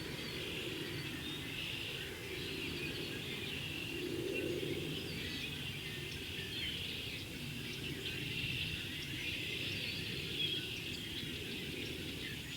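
A large mixed flock of red-winged blackbirds and cedar waxwings calling all at once: a dense, unbroken chatter of many overlapping chirps over a low steady rumble.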